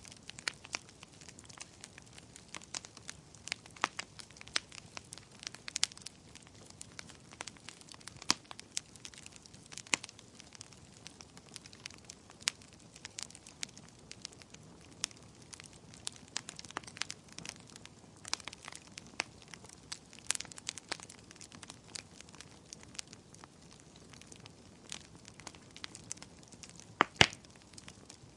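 Wood fire crackling, with sharp irregular pops over a soft hiss of burning; a couple of louder pops come near the end.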